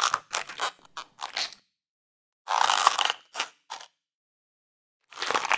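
Crunching, crackling sound effects in short bursts: several quick crunches, a longer one about two and a half seconds in, and another near the end, with dead silence between.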